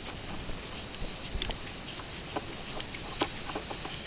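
Irregular small metallic clicks and taps as a nut is threaded onto a bracket stud and the parts are handled, with two sharper clicks about one and a half and three seconds in.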